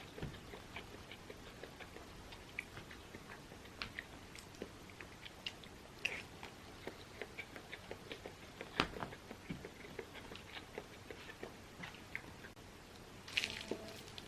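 Close-miked chewing and eating: soft mouth noises and many small clicks, with a sharper click a little past halfway and a brief louder noise near the end.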